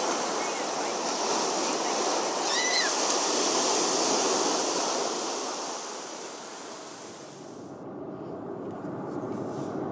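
Ocean surf breaking and washing up a sandy beach in a steady rush, with a brief high call about two and a half seconds in. Near the end the surf fades and a duller, lower hum of a car driving takes over.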